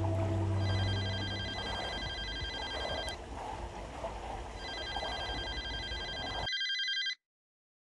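Telephone ringing, a steady electronic ring in repeated rings about two and a half seconds long with shorter pauses between. A low drone fades out about a second in, and near the end the sound cuts off to dead silence.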